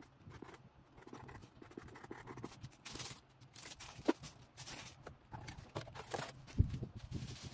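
Hands packing orders: scratchy rustling and small clicks from handling packaging and small items, with a sharp tap about four seconds in and a heavier thump after six and a half seconds.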